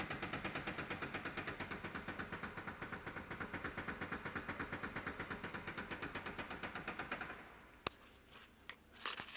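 Worn steering rack of a Ford Mondeo IV knocking in a fast, even rhythm, several knocks a second, a rattle the owner calls terrible. The knocking stops about seven seconds in, and a single sharp click follows.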